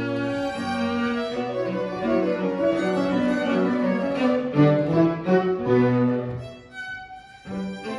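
Violin and cello duet: a half-size violin and a quarter-size cello bowing a lively passage of moving notes, with the cello's low notes underneath. The playing briefly thins to almost nothing about six and a half seconds in, then starts again near the end.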